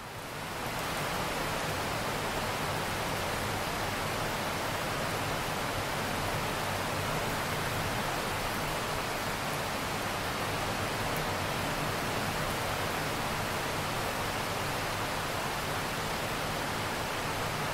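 Steady rain falling on open water, a dense even hiss of many drops that fades in at the very start.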